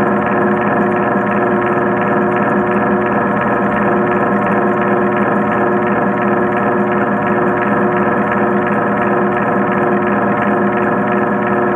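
Steady mechanical hum with several fixed tones and a faint even pulsing, heard through the water: the pump driving the pool's current.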